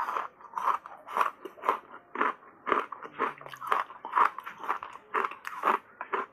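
A mouthful of hard ice coated in matcha powder being chewed up close: a steady run of sharp, crunchy bites and cracks, about three a second.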